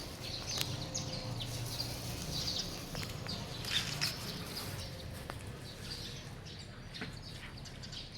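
Small birds chirping repeatedly in short, scattered calls, with a few sharp clicks and a low steady background hum.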